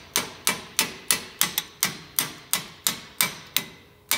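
Hammer striking a steel punch in quick, even blows, about three a second, each with a short metallic ring, driving the pin out of a Bendix air disc brake caliper.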